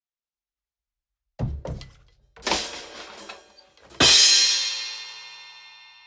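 Drum kit sting ending in a crash. A few quick drum hits come about a second and a half in, then a splashy crashing hit about a second later. The loudest stroke, a drum hit with a crash cymbal, lands about four seconds in and rings on, fading slowly.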